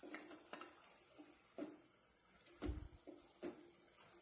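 Spatula stirring raw chicken pieces and onions in an earthenware clay pot while they sauté: a handful of faint, wet scrapes and knocks at irregular spacing.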